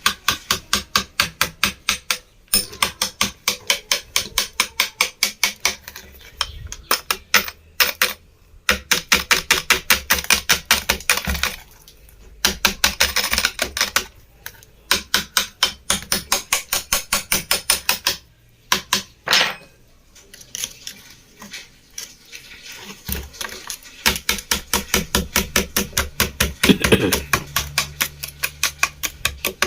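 Rapid metallic tapping with a small spanner on the instant water heater's drum, in runs of quick taps with short pauses, knocking the salt scale loose.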